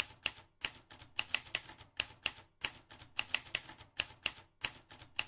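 Typing key clicks: an irregular run of sharp taps, several a second.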